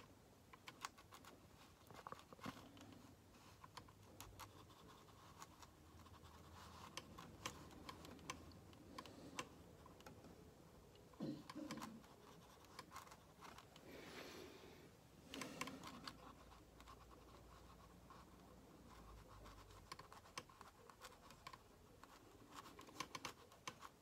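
Faint scratching and light ticking of a watercolor brush working paint into watercolor paper.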